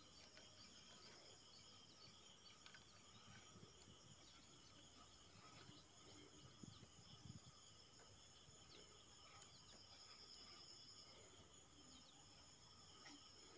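Near silence: faint steady chirring of insects, with a few faint knocks about seven seconds in.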